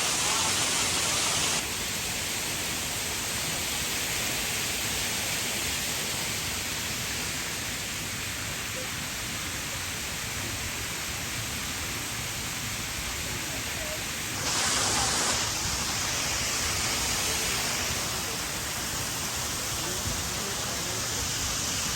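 Waterfall's falling water, a steady rushing hiss. The sound shifts abruptly about a second and a half in, and again around fourteen seconds in, where it is briefly louder and brighter for under a second.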